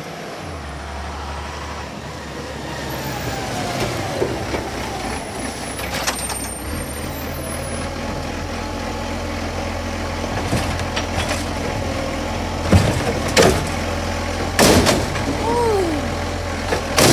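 Diesel engine of a side-loading garbage truck running as it draws up and stops, with air-brake hisses. Its hydraulic bin-lifting arm then grips and raises a wheelie bin, with several sharp clanks and short squeaks near the end.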